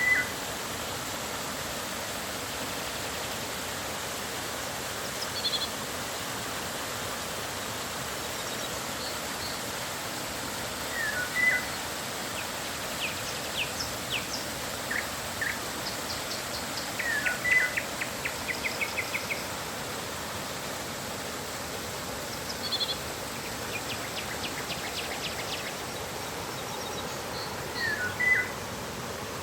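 Steady rush of flowing river water with wild birds calling over it: a short call phrase repeated four times and a few rapid trilled series.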